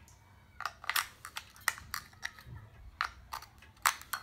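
Handling clicks and taps as a AAA battery is picked up and fitted into the plastic battery compartment of a wireless meat thermometer's handheld unit: about ten sharp, irregular clicks.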